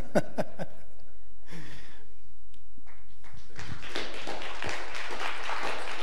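Congregation applauding, the clapping swelling in about three and a half seconds in and carrying on, after a few short voice sounds at the start.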